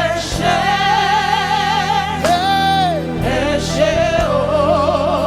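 Live gospel worship music: long held sung notes with vibrato over a steady sustained instrumental accompaniment.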